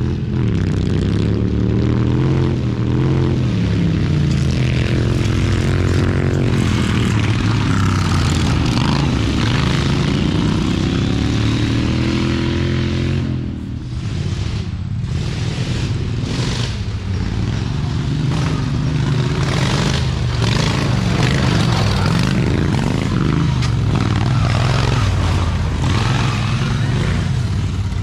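Racing lawn mower engines running and revving, several at once, their pitch rising and falling. The sound dips briefly about halfway through, then engine noise continues.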